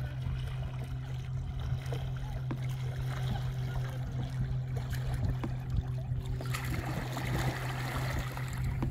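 Kayak paddle strokes in lake water: small drips and laps, then a louder splashing rush from about two-thirds of the way in as a double-bladed paddle dips near the microphone. A steady low hum runs underneath.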